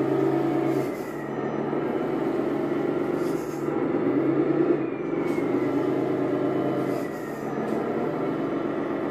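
RC model truck running: a steady engine-like drone whose pitch shifts in steps, with a faint falling whine twice.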